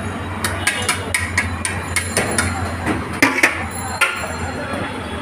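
Metal serving spoon knocking and scraping against a large aluminium biryani pot and a plate, a quick series of sharp clinks, some ringing briefly, over a steady low hum.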